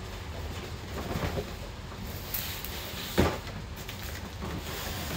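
Cardboard boxes being handled and slid apart on a concrete floor: scraping and shifting of cardboard, with one sharp thump about three seconds in.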